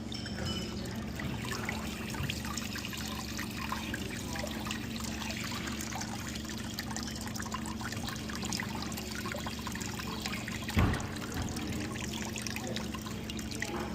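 Water trickling and splashing from an opened plumbing line or faucet, with a steady low hum underneath and a single thump about eleven seconds in.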